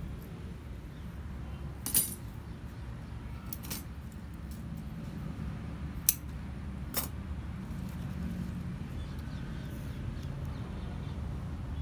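Small bonsai scissors snipping the tails off plastic cable ties: several short, sharp snips spread over a few seconds, over a steady low background rumble.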